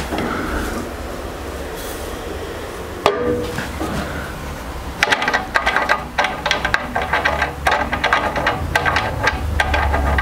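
Small metal bolt or knob on a table saw's plastic blade guard being worked by hand: one knock about three seconds in, then from about halfway a run of quick, irregular clicks and ticks. A steady low hum lies underneath.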